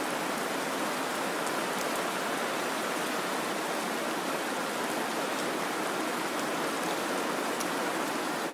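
Steady rain: an even, dense hiss with a few faint drop ticks, cutting off suddenly at the end.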